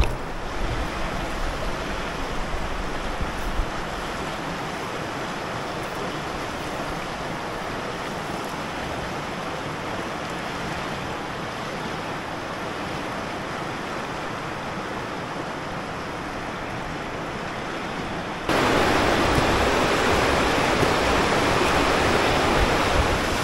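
River water rushing over rocky riffles, a steady noise. It jumps abruptly louder about three-quarters of the way through.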